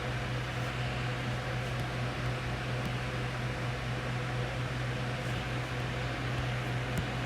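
Room heater running: a steady low electrical hum under an even fan-like hiss, with a few faint ticks.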